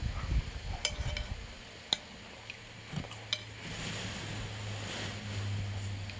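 Spoon clinking against a soup bowl about five times in the first half, the sharpest clink about two seconds in, over a steady low hum.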